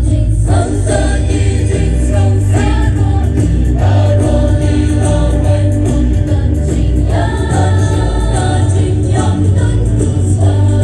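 Mixed choir of women and men singing a church song together, with sustained notes that change every second or so.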